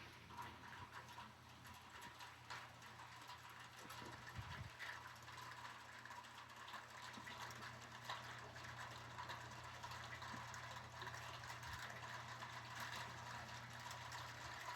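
Light rain pattering on a steel louvered pergola roof: a faint, steady patter of many small drop ticks, growing slightly heavier toward the end.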